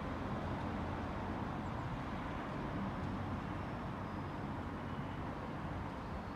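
Steady low rumble of vehicle engines running, even throughout with no distinct events.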